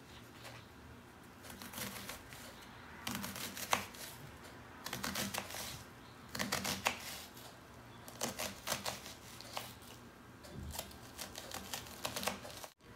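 Kitchen knife finely chopping an onion on a wooden cutting board: runs of quick taps against the board with short pauses between them.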